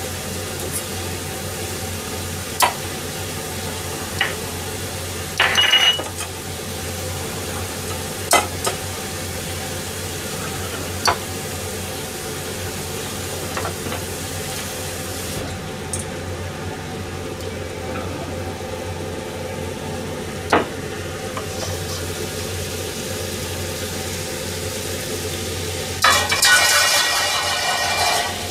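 Hamburg steak patties frying in a frying pan weighed down under a pie plate: a steady low sizzle with a few sharp pops and clicks. About 26 seconds in, the cover is lifted and the sizzling gets louder, with a clatter of metal.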